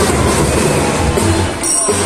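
Children's drum band playing a tune: melodicas and mallet-struck glockenspiels over snare and bass drum beats.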